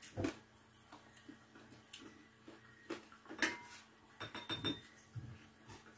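Spoon and fork clinking and scraping against plates and a bowl during a meal: scattered sharp clinks, with several in quick succession about four seconds in.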